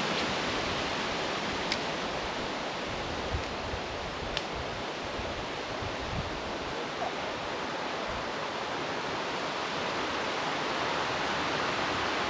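Steady outdoor rushing noise with two faint clicks, about two and four and a half seconds in.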